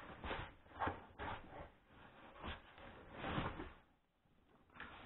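Foam packing rubbing and scraping against an aluminium printer frame as the frame is worked loose and lifted out of its box, in irregular bursts with a short lull about four seconds in.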